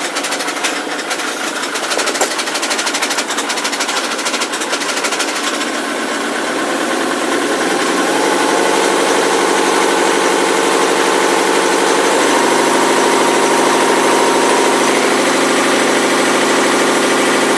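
Ford Mondeo Mk3 turbo-diesel engine running with a rapid knocking clatter. About seven seconds in it is revved up and held at higher revs, rising a step further near twelve seconds. The owner calls it a very puzzling knock and hears it from the left side of the engine, as if from the chain.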